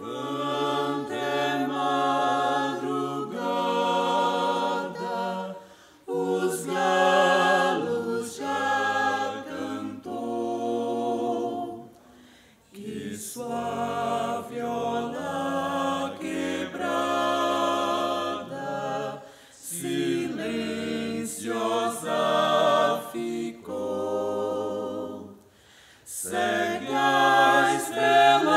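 A small mixed vocal ensemble of women's and men's voices singing in harmony, holding sustained chords in phrases of about six seconds with brief breaks between them.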